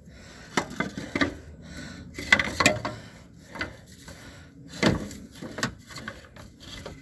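Irregular knocks, clacks and light scrapes as a used spin-on oil filter is worked out through the cramped space under a pickup, bumping against the frame and suspension metal. The sharpest clacks come in a cluster about two and a half seconds in and again near five seconds.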